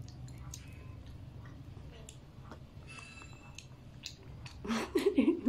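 A child chewing a gummy worm: faint wet mouth sounds and small clicks. Near the end comes a short wordless burst from a child's voice, the loudest sound here.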